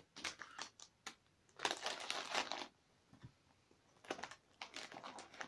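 Small items and their packaging being handled by hand and packed into a pouch: a run of light clicks and taps, about a second of crinkling and rustling a second and a half in, then more scattered clicks.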